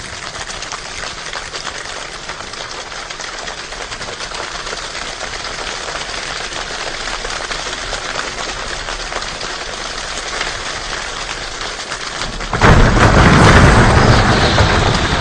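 Human imitation of rain: a dense patter of many small clicks that slowly grows louder. About 12.5 s in it breaks into a sudden, much louder burst with a deep rumble, standing for the thunder.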